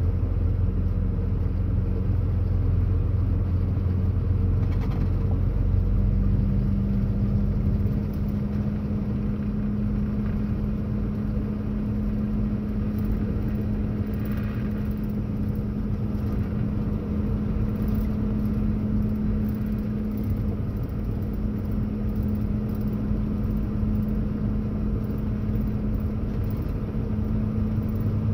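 Kenworth W990 tractor's diesel engine and road noise heard from inside the cab while it cruises at town speed: a steady low rumble and hum. The hum steps up slightly in pitch about six seconds in, and the deepest rumble eases a couple of seconds later.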